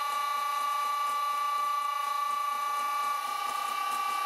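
VFD-driven electric motor of a vintage Karger lathe running at steady speed, giving a constant high-pitched whine with several fainter overtones, while a twist drill bores into the spinning metal workpiece. The motor's hold-down bolts have just been tightened to stop it vibrating.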